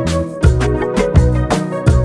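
Background music with a steady beat: a low drum about every 0.7 s under bass and melody notes.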